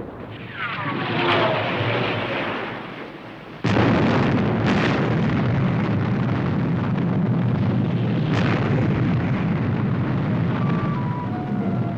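Sound effect of a missile test firing: for the first few seconds a whooshing noise with whistles falling in pitch, then, about four seconds in, a sudden huge explosion whose heavy rumble keeps going.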